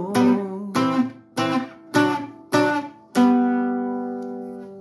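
Bajo sexto-type Mexican double-course guitar strummed in a run of short chords about every half second, then a final loud chord about three seconds in that is left to ring and fade out, closing the song.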